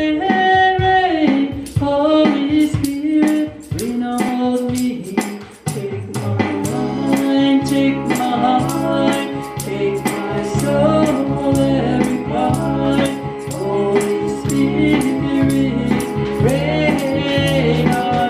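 A woman singing a gospel hymn into a microphone, over a steady percussive beat like a tambourine; a fuller, deeper accompaniment comes in about six seconds in.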